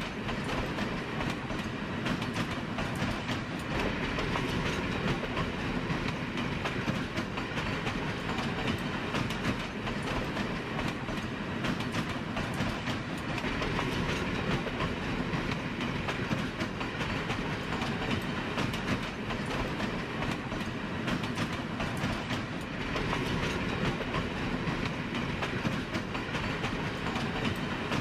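Train running along the track: a steady rumble and rattle with many small clicks of the wheels on the rails.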